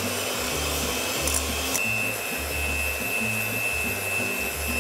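Electric hand mixer running steadily with a high whine, its beaters whisking eggs and sugar in a bowl.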